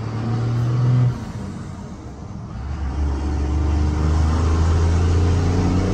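Second-generation Dodge Ram's 24-valve Cummins 5.9-litre inline-six turbo diesel with an aftermarket exhaust, heard from inside the cab. It eases off a little after a second in, then pulls again with a deep drone that grows louder and slowly rises in pitch as the truck gathers speed.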